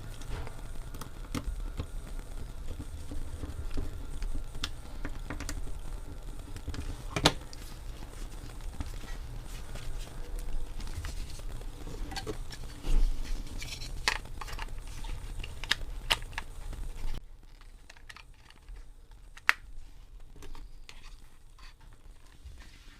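Scattered light clicks, taps and knocks of small plastic parts and screws being handled while a cordless phone handset is put back together, with a few louder knocks. A low steady hum sits under it and drops away about 17 seconds in.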